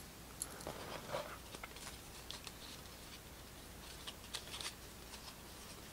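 Soft handling noise from a stack of Panini Select basketball trading cards being flipped through in the hands: a scatter of faint clicks and short slides of card against card.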